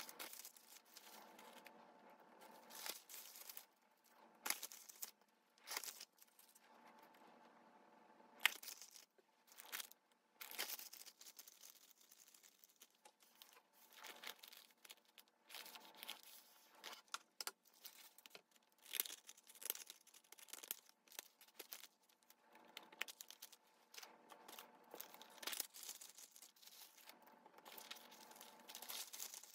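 Paper and translucent paper packaging sleeves rustling and crinkling in short, irregular bursts as they are handled and folded, with now and then a sharper tearing-like crackle.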